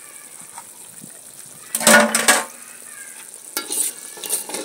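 A metal spoon stirring and scraping through carrots and potatoes in a large aluminium pot of brown stew sauce, over a steady low sizzle. One loud stroke comes about two seconds in, then a few shorter scrapes near the end.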